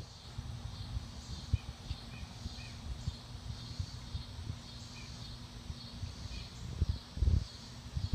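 Outdoor garden ambience: a steady low rumble with small knocks on the microphone and a stronger surge about seven seconds in, under a faint high pulsing hiss and a few short, faint bird chirps.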